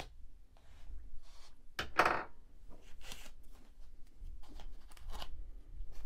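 Motherboard packaging being handled: irregular rustling, scraping and sharp clicks of the foam tray and plastic, the loudest a short rasping scrape about two seconds in.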